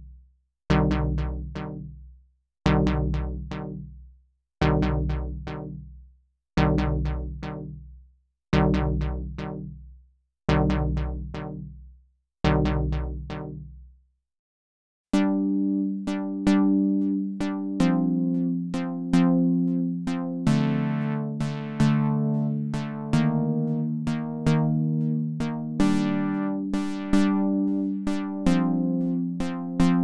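Dave Smith Evolver synthesizer playing chord patches. First, a repeating chord stab with a deep bass about every two seconds, each one fading out. After a short break about halfway through, a different chord sequence starts, with sharp clicky attacks and the chord changing about once a second.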